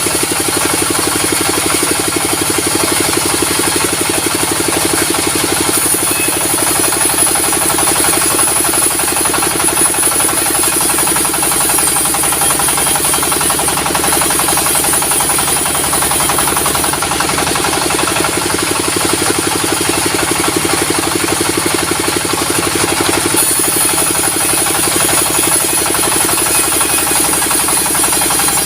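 A sawmill's diesel engine runs steadily with a fast, even pulsing. Above it a high hiss gets louder and softer a few times.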